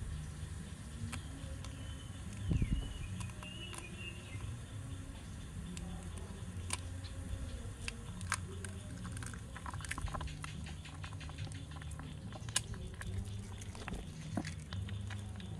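Hot oil crackling and popping in a small iron wok, with irregular sharp pops throughout as an egg is cracked in to fry. A single louder low knock comes about two and a half seconds in.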